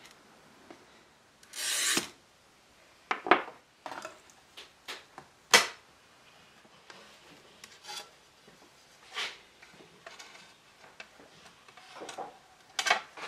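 A glass cutter scoring a pane of wavy restoration glass along a steel rule: one scratchy stroke about a second and a half in. It is followed by scattered sharp clicks and clinks of the glass being handled and laid on the bench, busiest near the end.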